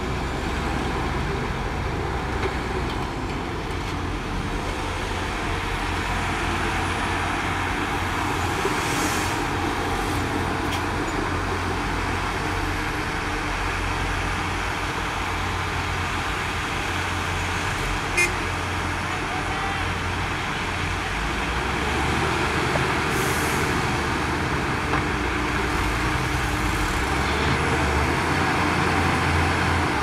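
Heavy diesel engines of a crawler bulldozer and a loaded dump truck running steadily. Two short hisses come about 9 and 23 seconds in, and a single sharp click near the middle.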